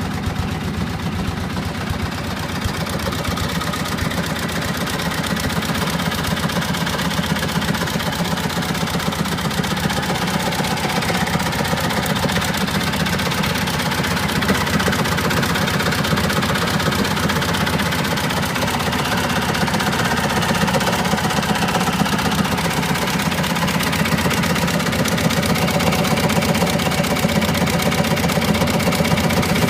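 Cushman Trackster tracked vehicle running steadily, its engine note mixed with a continuous grinding noise from the machine.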